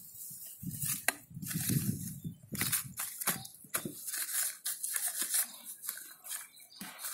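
Hands working manure into the soil of a black plastic polybag, with irregular crunching, scraping and crinkling of soil and plastic.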